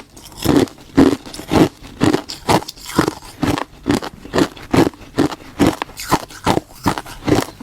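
Crunchy 'bursting' ice being bitten and chewed close to the microphone: a steady run of crisp crunches, about two a second.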